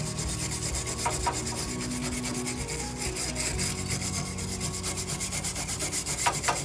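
Wooden-handled wire brush scrubbing a foam-covered painted metal bench frame in quick repeated back-and-forth strokes, scraping off rust and flaking paint.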